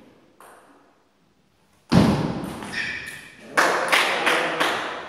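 Table tennis point being played: a loud thump at the serve about two seconds in, then the ball cracking off bats and table in quick succession, about three hits a second.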